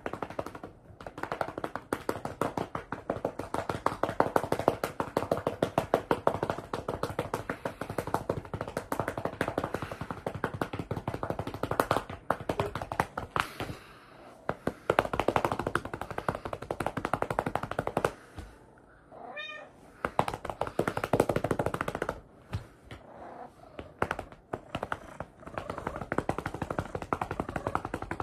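Rapid hand pats slapping on a cat's rump, many a second, stopping for a pause about two-thirds of the way through in which the cat meows once, then starting again.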